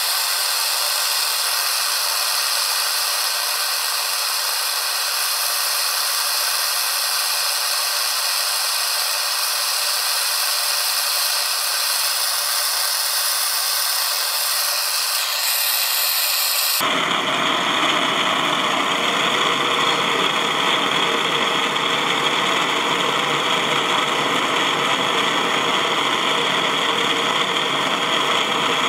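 Handheld butane canister torch burning with a steady hiss as its flame heats a branding iron. About two-thirds of the way through, the hiss abruptly turns fuller and lower.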